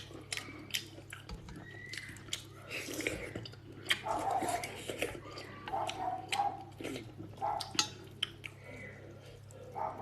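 Close-up eating sounds of a person slurping and chewing hot and sour noodles, with many short wet smacks and clicks, over a steady low hum.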